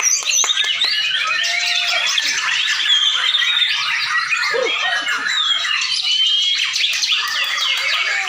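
Several white-rumped shamas singing at once, a dense tangle of overlapping whistles, rising and falling glides and chatter.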